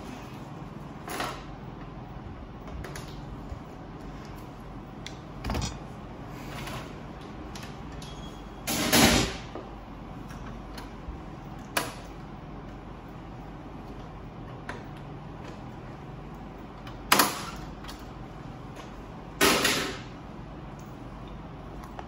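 Parts of a Ricoh MP C306 multifunction printer clicking and knocking as the toner hopper housing is handled and worked loose: about six separate knocks spread out, some short and sharp, over a steady low hum.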